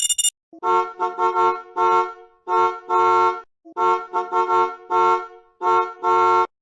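Novelty musical horn of a hippie bus playing a short tune of steady-pitched toots: a run of quick notes, then two longer ones. The phrase plays twice, with a brief pause between.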